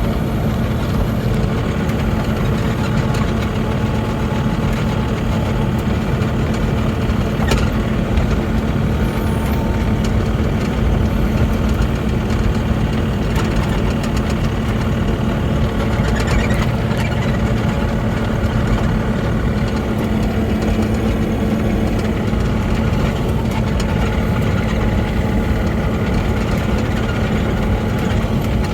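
Mini excavator's engine running steadily, with a constant low hum.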